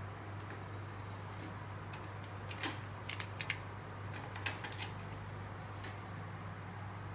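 Steady low hum with a handful of short, sharp clicks from about two and a half to five seconds in.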